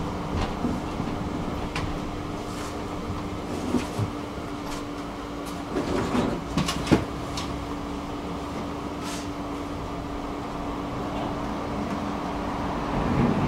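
Tram running along its track: a steady rumble with a steady hum. There are a few scattered clicks, and a cluster of sharper knocks about six to seven seconds in.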